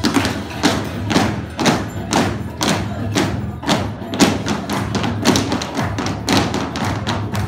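Irish dancers' shoes striking the dance floor in unison, a steady beat of about two stamps a second, over lively Irish dance music.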